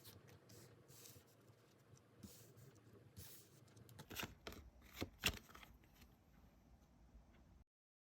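Tarot cards being handled: faint rustling and sliding of cards, with a few sharper snaps or taps between about four and five seconds in, the loudest near the five-second mark.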